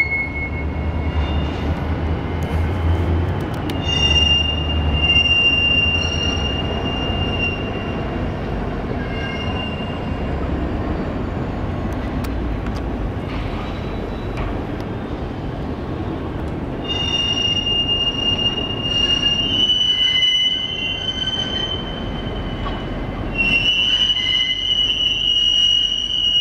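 Rail car wheels squealing on yard track in long, high, steady tones that come and go and shift slightly in pitch, over a low rumble of rolling rail cars, heaviest in the first few seconds.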